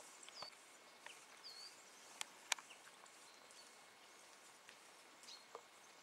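Quiet rural outdoor ambience with a few faint, short bird chirps and two sharp clicks a little over two seconds in.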